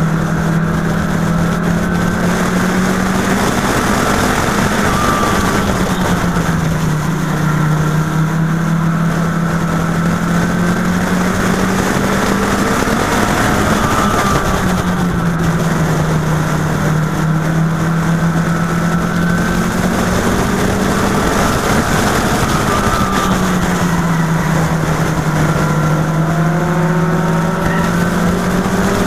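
Mini stock race car's engine heard from on board at racing speed, running hard. Its pitch dips and then climbs again about every eight or nine seconds as the car slows for the turns and accelerates down the straights.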